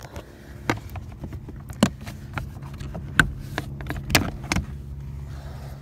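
Plastic under-dash trim panel of a Honda Civic being worked loose by hand: a handful of sharp clicks and knocks as its clips let go, over a steady low hum.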